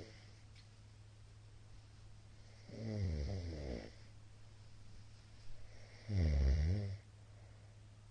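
A middle-aged man snoring in his sleep: two long snores about three seconds apart, each lasting about a second, the second louder, over a steady low hum. The uploader puts the heavy snoring partly down to alcohol.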